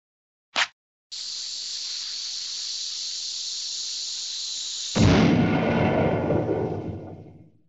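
Cartoon fuse-and-explosion sound effect: a brief burst, then a lit fuse hissing steadily for about four seconds, cut off by a loud explosion whose rumble dies away over two to three seconds.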